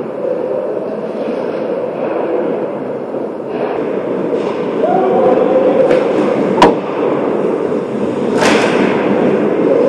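Ice hockey play: skate blades scraping the ice over a steady rink din, with one sharp crack about two-thirds of the way through and a short hiss of skates near the end.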